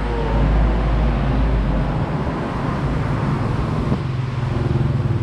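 Road traffic: a vehicle engine running as a steady low rumble, whose deepest part drops away about two seconds in.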